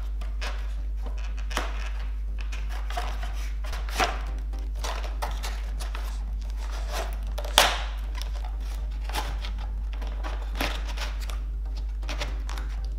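Hands handling foam and plastic model-aircraft parts and wiring: scattered light clicks and knocks, the loudest a sharp knock about seven and a half seconds in, over a steady low hum.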